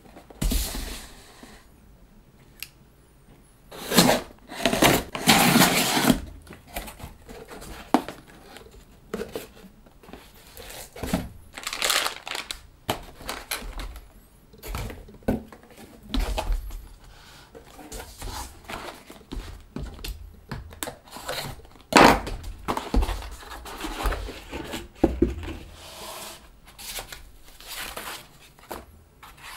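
Cardboard shipping box and boxed glass print bed being opened and unpacked by hand: irregular handling noise of cardboard and packing foam. The loudest stretches come about four to six seconds in and again around twenty-two seconds.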